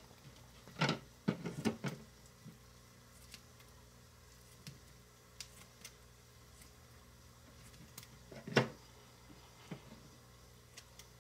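Kitchen scissors snipping raw bacon into small pieces, heard as scattered soft clicks, with louder knocks of the scissors and plastic plate being handled about a second in and again near nine seconds.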